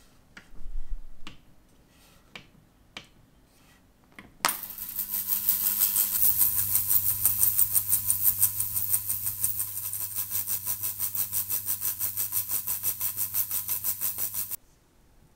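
A few clicks at the control panel, then the Elma Elmasonic Select ultrasonic cleaner switches on about four seconds in. It runs with a loud hissing buzz that pulses rapidly, several beats a second, over a steady low hum while it cleans stainless-steel watch case parts in its bath. It cuts off suddenly near the end.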